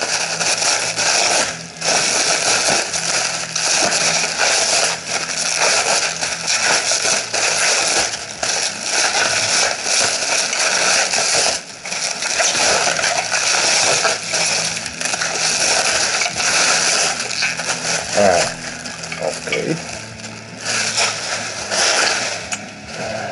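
Plastic packaging wrap crinkling and crackling steadily as hands pull and tear it off crash-bar parts.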